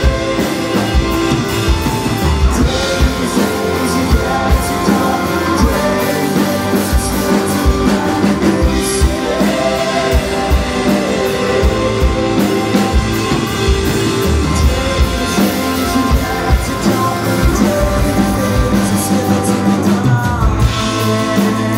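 Live rock-style worship band playing: drum kit, electric and acoustic guitars and bass guitar, at a steady beat.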